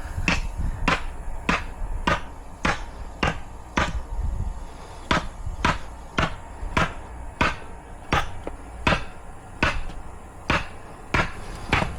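A wooden stake being driven into the ground with a hammer: about twenty steady, even blows, a little under two a second.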